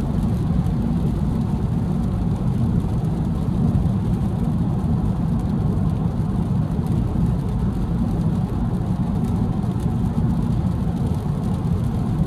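Steady low rumble of road, tyre and wind noise heard inside the cabin of a 2022 Honda Civic Si cruising at highway speed on a rain-soaked road.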